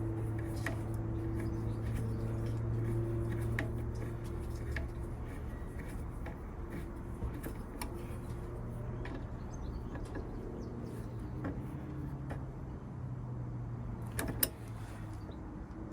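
Light scattered clicks and knocks of hand tools and metal parts as a bolt is fitted and tightened on the gear shift extension, over a steady low hum.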